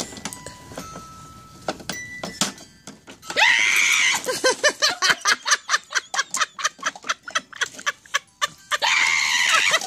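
A few plinking music-box notes from the jack-in-the-box's crank tune. About three seconds in, a loud high-pitched cry, then a fast run of short sharp cries, about five a second, and a second loud cry near the end.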